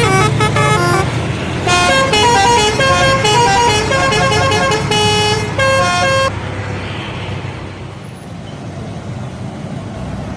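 Bus telolet horn playing a quick melody of stepped notes, with a short break about a second in, then cutting off about six seconds in, leaving only the low rumble of the bus engine and road noise.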